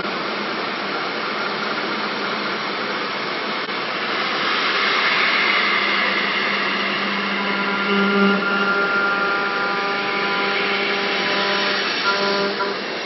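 5-axis CNC machine milling a metal impeller with a small end mill: a steady hiss of spindle and cutting noise, with whining tones that come in about eight seconds in and again near the end.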